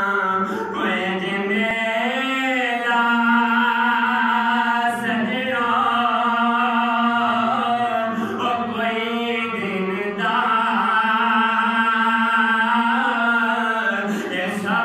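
A man singing an Urdu naat, a devotional poem in praise of the Prophet, in a single unaccompanied voice through a microphone. He draws the lines out in long held notes that bend and waver, pausing briefly for breath a few times.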